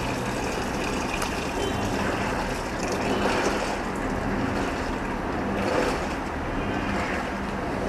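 LG top-load washing machine in its main wash: water churning and sloshing in the drum over a steady motor hum, swelling a couple of times.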